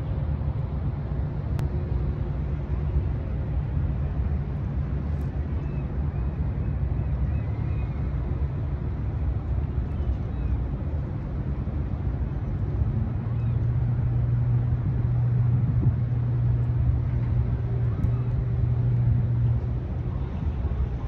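Low steady drone of a departing Washington State ferry's engines carrying across the water, its deep hum growing louder past the middle and easing off near the end.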